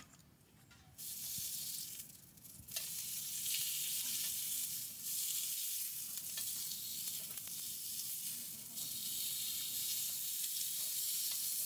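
Food sizzling on a hot camp grill. A steady frying hiss starts about a second in, dips briefly, then runs on.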